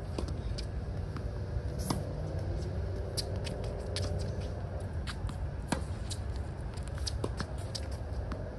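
Tennis rally on a hard court: sharp pops of racket strings striking the ball, with quick taps and scuffs of tennis shoes on the court between shots, over a steady low rumble.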